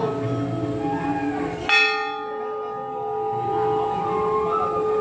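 Hanging brass temple bell struck once about two seconds in, then ringing on in several steady, lingering tones. The hum of earlier strikes is still sounding before it.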